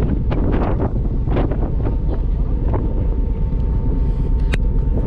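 Strong wind buffeting the microphone in a steady low rumble. A thin steady tone comes in about three seconds in, and there is one sharp click near the end.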